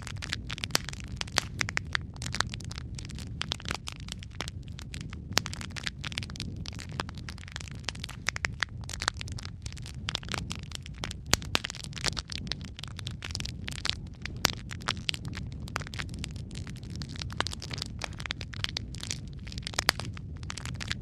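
Wood fire burning in a fireplace: a steady low rumble of flames with frequent irregular crackles and pops from the burning logs.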